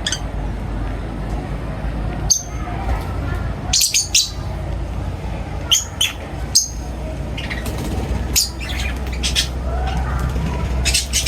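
Birds chirping and squawking in short, sharp calls every second or two, over a steady low hum.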